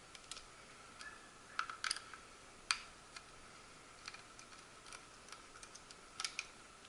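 Scattered small plastic clicks and taps from a handheld wireless HVAC probe being handled and its battery compartment checked, a few in quick clusters with one sharper click near the middle.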